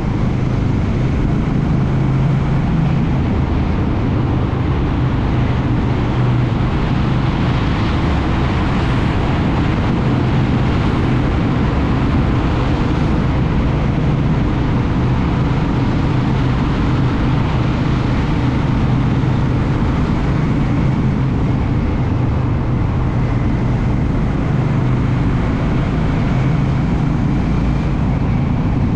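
Motorcycle being ridden at steady speed: the engine runs with an even low hum under wind and road noise.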